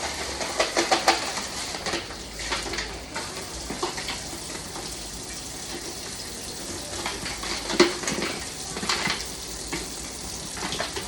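Kitchen work: a steady hiss under repeated clinks and knocks of utensils against pans and dishes.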